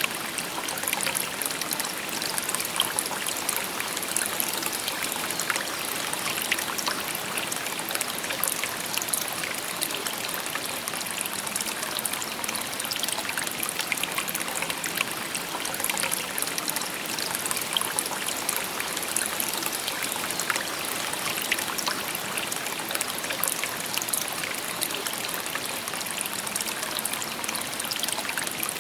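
A shallow river babbling steadily over stones, with many small splashes and trickles.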